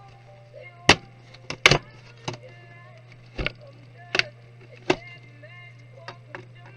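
Sharp clicks and taps of tools and small parts being handled while a Dell Inspiron 15 3567 laptop is taken apart, about one a second, some ringing briefly. A steady low hum lies underneath.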